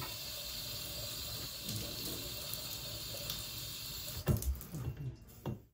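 Bathtub spout running a steady stream of water into a short copper pipe held beneath it. The water is shut off at the faucet handle about four seconds in, followed by a few soft knocks.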